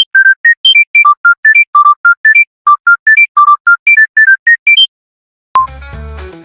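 Panasonic mobile phone ringtone: a fast, high melody of short electronic beeps, about four or five notes a second, that stops about five seconds in. Near the end, fuller background music with a bass line starts.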